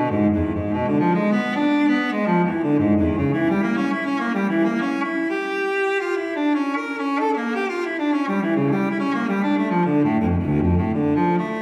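Solo cello music: a bowed melody of held notes, moving from one note to the next every half-second to a second.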